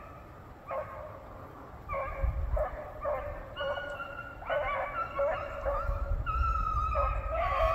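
A pack of rabbit hounds baying as they run a rabbit's trail. Several dogs' drawn-out calls overlap, growing louder and more continuous over the last few seconds.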